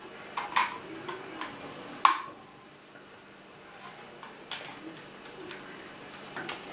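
Peizhi plastic toy building bricks clicking as they are handled and pressed onto a model: a scatter of small, irregular clicks, with a sharper one about two seconds in.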